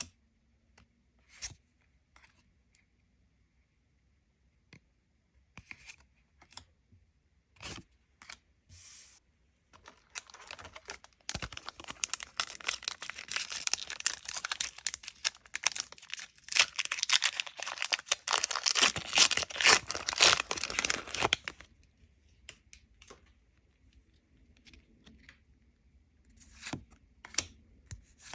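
Lorcana booster pack wrapper being torn open and crinkled, a dense crackling that runs for about ten seconds in the middle, with scattered light clicks and taps from handling cards and packaging before and after.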